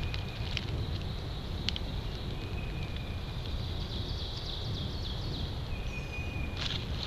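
Woodland ambience: birds calling with three short, thin, held whistled notes and a few high chirps, over a high insect-like hiss and a steady low rumble of noise on the microphone, with a few faint clicks.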